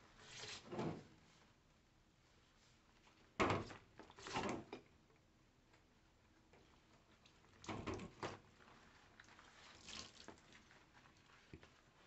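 Vinegar poured from a plastic gallon jug onto a bird cage's bottom tray, heard as a handful of short splashing bursts; the loudest starts suddenly about three and a half seconds in.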